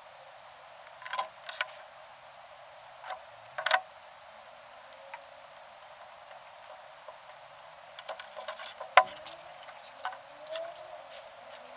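Scattered clicks and taps of small tools and wires being handled on a workbench cutting mat, over a steady faint hiss; the loudest click comes about nine seconds in.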